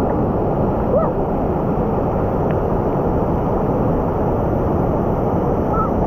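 Waterfall water rushing in a steady, even roar, with a brief faint voice about a second in.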